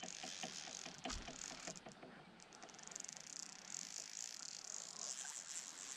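Fly reel's click-pawl drag ratcheting in irregular runs of rapid clicks as a hooked Atlantic salmon pulls line off it, quickening about halfway through.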